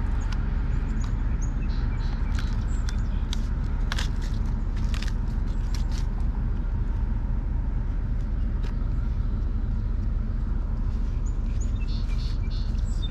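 Cardboard box and packing paper being opened and handled: scattered clicks and crinkles, thickest in the first few seconds and again near the end, over a steady low rumble.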